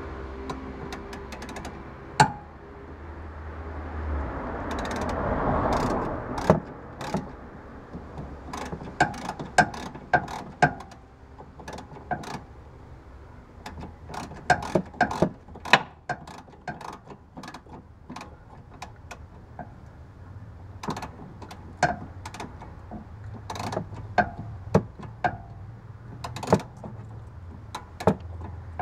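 Wrench working the nut of a BMW E46 front sway bar end link: sharp metallic clicks and clinks in irregular bursts, like a ratcheting wrench being swung back and forth. A swell of rushing noise rises and falls about five seconds in.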